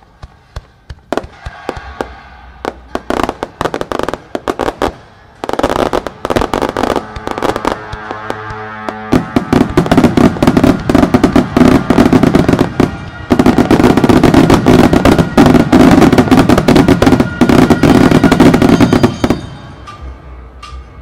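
Fireworks display going off: scattered sharp bangs at first, building about nine seconds in into a dense, loud barrage of bangs and crackling that stops suddenly near the end. Music plays underneath.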